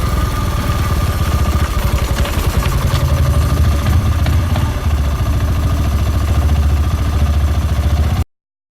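Spy Racing 350 F1's single-cylinder engine running steadily with a fast, uneven low pulsing and a thin steady whine, cut off suddenly about eight seconds in. The owner suspects an engine fault: a cracking, bursting noise that is worst in first gear when cold and fades once the engine is warm.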